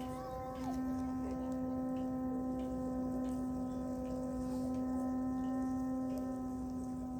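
Vietnamese kite flute (sáo diều) of the còi tàu, horn-like kind, sounding a steady low drone with several fainter higher tones above it. The low tone breaks off briefly just after the start, then holds.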